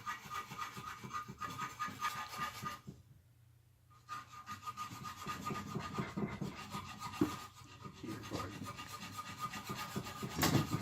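Irregular scraping and rubbing, as of metal parts or tools being worked by hand, stopping for about a second around three seconds in.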